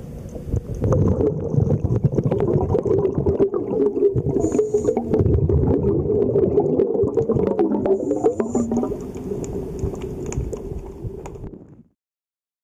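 Underwater sound of a scuba diver breathing through a regulator: short hissing inhalations about every four seconds and rumbling, gurgling exhaled bubbles between them. The sound cuts off abruptly near the end.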